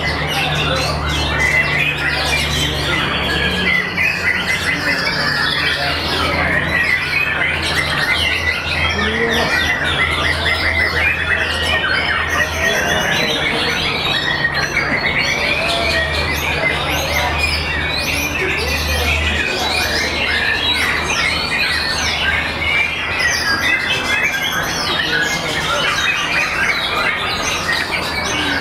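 Caged white-rumped shamas (murai batu) singing at once, a dense, unbroken chorus of quick gliding whistles and harsher calls, with a steady low hum underneath.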